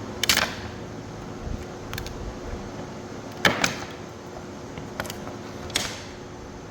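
Small pine holding tabs cracking as a CNC-carved wooden piece is snapped free by hand: a few sharp cracks with smaller ticks between, the loudest about three and a half seconds in, over a steady hum.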